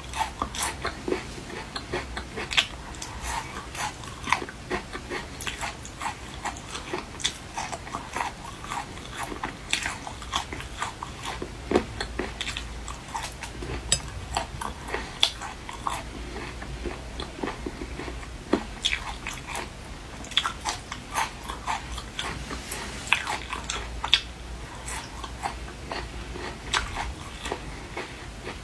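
Close-miked mukbang eating: a steady run of irregular crunches, bites and chewing on seafood, several sharp cracks a second.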